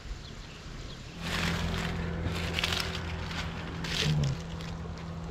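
A steady low mechanical hum, like a motor running, sets in about a second in and holds an even pitch, with brief rustling noises over it.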